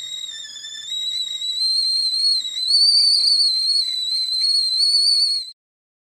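Tea kettle whistling at the boil: a shrill, slightly wavering tone that swells louder twice and cuts off suddenly near the end.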